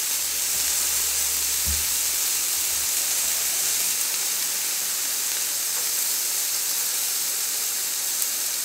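Marinated Korean beef (galbi and bulgogi) sizzling steadily on an electric grill plate, with a soft low bump about two seconds in.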